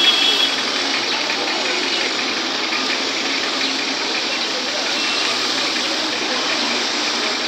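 Steady street noise: a vehicle engine running under a continuous even hiss, with no distinct events.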